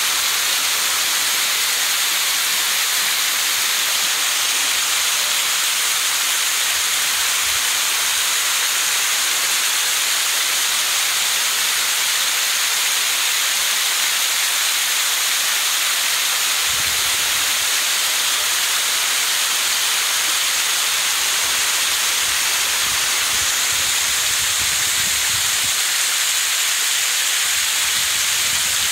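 Fountain water pouring in bell-shaped sheets from overhead nozzles and splashing into a shallow pool: a steady, even hiss of falling water.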